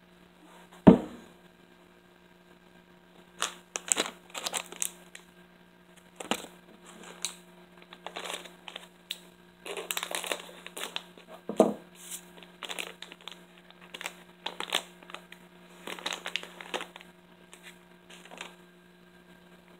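Plastic robot toy figure being handled and its parts moved: scattered clicks and rattles of hard plastic mixed with crinkling of plastic packaging. Two heavier knocks stand out, the loudest about a second in and another near the middle.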